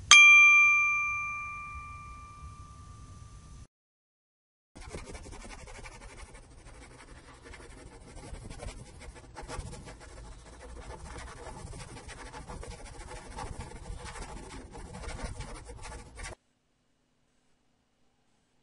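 A single bright chime-like ding that rings and fades away over about two seconds. After a short silence comes a marker pen writing on a whiteboard: a continuous dry rubbing and scratching for about twelve seconds that stops abruptly.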